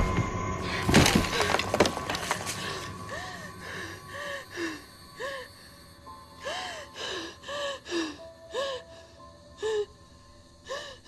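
A woman sobbing and gasping in fear: short, breathy whimpering cries about once a second, each rising and falling in pitch. A few loud impacts come in the first two seconds.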